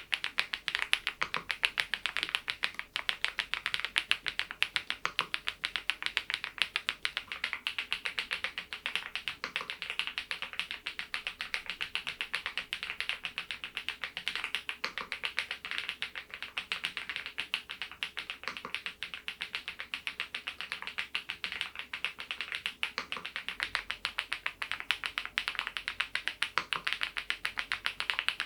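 Continuous typing on a Geekstar GKG87R tenkeyless mechanical keyboard with its stock HMX Mongdol linear switches: a steady, rapid stream of keystrokes.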